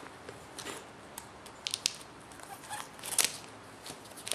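Cardboard packaging being handled as a keyboard is worked out of its box: scattered light clicks and scrapes, the loudest about three seconds in.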